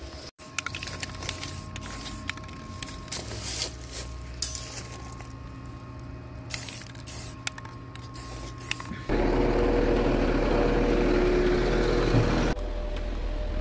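Scattered clicks and rustling of handling noise over a low hum. About nine seconds in, a large truck's engine running close by takes over as a louder, steady rumble for about three and a half seconds.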